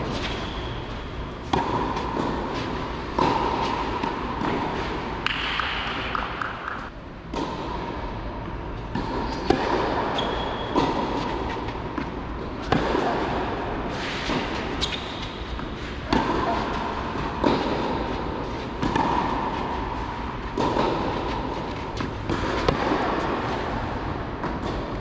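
Tennis ball struck back and forth by rackets on a clay court, a sharp pop roughly every one and a half seconds, each echoing around the large hall.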